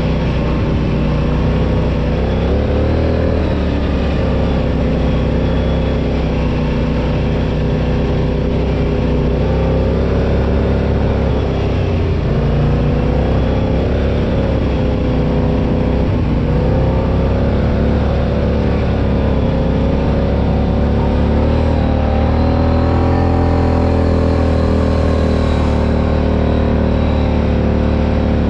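Off-road ATV or side-by-side engine running hard, its pitch rising and falling again and again as the throttle changes.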